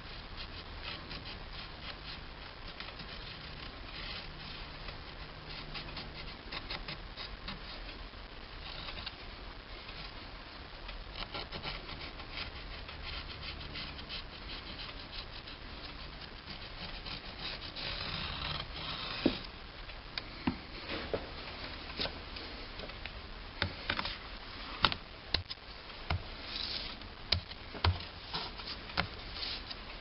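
Steady rubbing and scratching of paper against metal while a new paper carburetor gasket is being marked out. About two-thirds of the way through it gives way to a run of sharp, separate taps and clicks.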